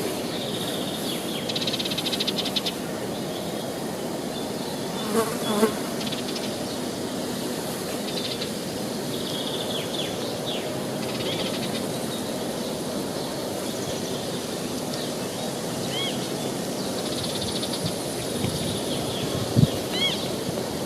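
Steady rush of a forest river with small birds chirping. An insect buzzes close by about five seconds in, and a short low thump comes near the end.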